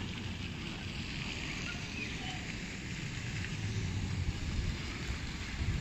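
City street ambience: a steady hiss and low rumble of traffic, growing a little louder toward the end.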